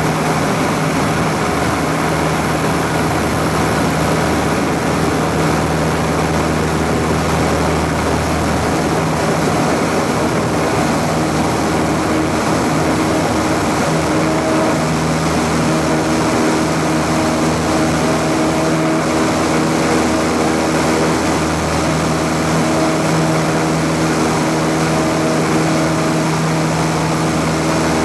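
Single-engine light aircraft's piston engine and propeller running steadily at takeoff power through the ground roll and lift-off.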